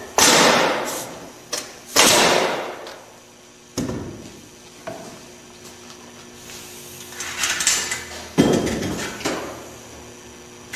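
Pneumatic framing nailer tacking 8-penny nails into a pine 2-by frame: three sharp shots about two seconds apart, each trailing off briefly. A further loud knock comes later on.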